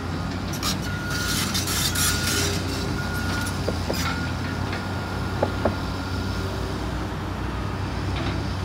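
Diesel engine of a Cat 325C excavator running steadily, with a few sharp knocks in the middle, the loudest two close together about five and a half seconds in.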